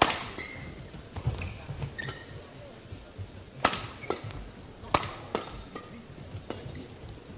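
Badminton rally: rackets striking the shuttlecock in sharp cracks about every second, some eight or nine hits, the loudest right at the start, with short high squeaks between the hits.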